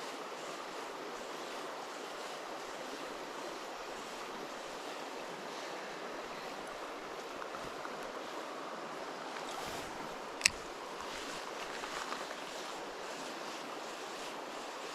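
Steady rush of flowing river water. About ten seconds in comes a single sharp click, the loudest sound, with a few faint ticks after it.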